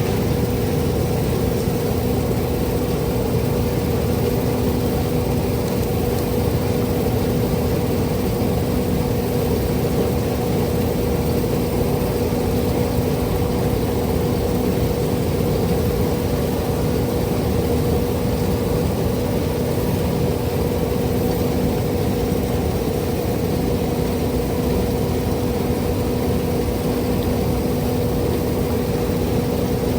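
Steady machine noise: a motor running at an unchanging speed, with a constant hum at two pitches over a rushing drone.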